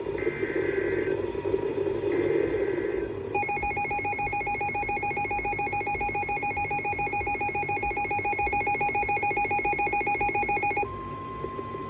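Emergency Alert System alert on a NOAA Weather Radio receiver, over radio static. It opens with two short bursts of warbling digital SAME header tones. Then comes a steady, fluttering two-tone attention signal for about seven seconds, which switches near the end to a single steady, higher-pitched warning tone.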